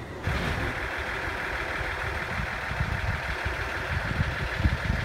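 Aizu Railway diesel railcar idling at the platform: a steady engine rumble under an even, hiss-like whir. The sound comes in suddenly just after the start.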